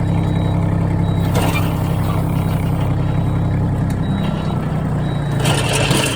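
Tractor engine running steadily with the rotary tiller driven, with a brief rattle near the end. The uploader asks whether the abnormal noise from near the rotary's rotating shaft comes from a lack of oil or a bad bearing.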